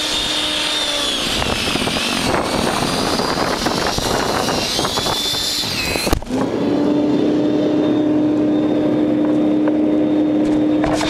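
WEN 5662 13.5-amp electric snow thrower running, its motor humming steadily while the auger churns and throws heavy snow with a gritty rush. About six seconds in there is a sharp knock; after it the sound turns muffled and the motor hum carries on steadily.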